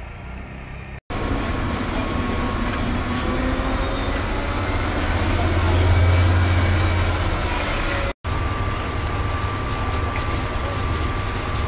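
Fire truck engine running steadily with a low hum that swells for a couple of seconds in the middle, over a hiss of fireground noise. The sound cuts out for an instant twice.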